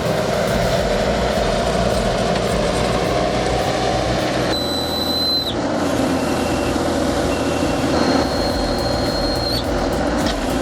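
Heavy tracked machinery running steadily, with two brief high-pitched squeals in the second half; the sound changes abruptly about halfway through.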